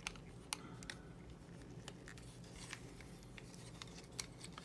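Faint scattered clicks and light rubbing of plastic parts as a Combiner Wars Blast Off Transformers figure is handled, its arms being folded down and tabbed into place.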